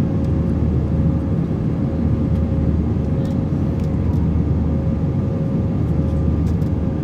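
Airbus A320 cabin noise during the climb after take-off: a steady low engine and airflow rumble with a faint constant hum above it.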